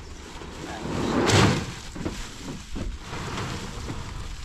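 Heavy woven sack of aggregate dragged across a pickup truck's ridged plastic bed liner: a scraping slide that swells to a peak about a second and a half in, followed by a few light knocks.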